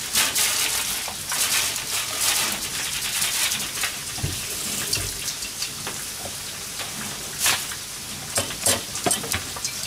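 Wiener sausages and garlic frying in oil in a pan: a steady sizzle with scattered crackles and pops, a little stronger in the first few seconds.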